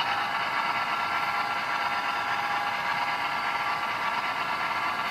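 Bachmann HO-scale Santa Fe F7A's DCC sound decoder playing a steady diesel engine sound through the model's small speaker, thin with little bass.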